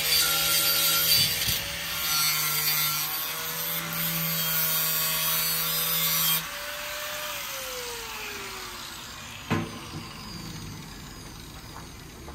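A power tool runs under load with a loud hiss over its steady motor hum. It is switched off about six seconds in, and its motor pitch falls as it winds down. A single knock follows a few seconds later.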